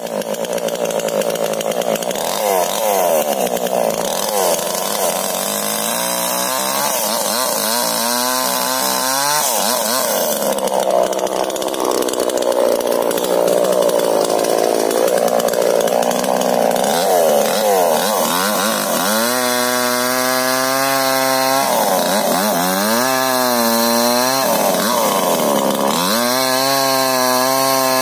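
Stihl chainsaw cutting into a standing tree trunk. The engine pitch swings up and down repeatedly as the chain bites and frees in the wood, with several spells of steady full revs in the second half.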